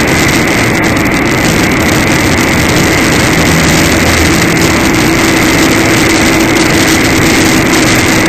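Steady engine and road noise of a vehicle cruising at highway speed, heard from inside it, with a steady high-pitched tone running over it.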